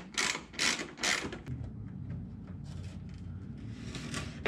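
Socket ratchet turning out the last bolt of a car's front splitter: four short rasping strokes at a steady pace in the first second and a half, then faint scuffing and a small click near the end.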